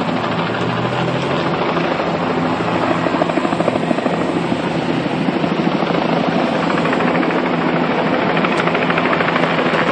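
Helicopter flying low overhead, its rotor chop a loud, steady, rapid pulsing.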